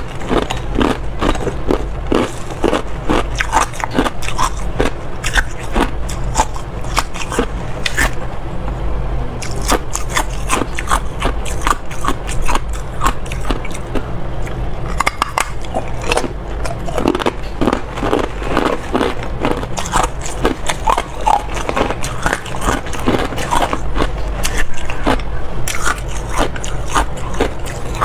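Ice being bitten and chewed close to the microphone: a dense, irregular run of sharp crunches and cracks that goes on without a break.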